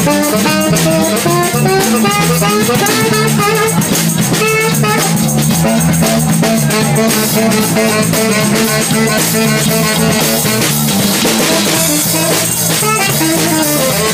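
Live band playing: a saxophone carries a wavering melody over an electric bass line, congas and a drum kit.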